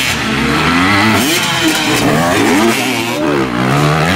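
Enduro dirt bike engines revving up and down again and again, more than one bike at once, as the riders work the throttle through the loose sand.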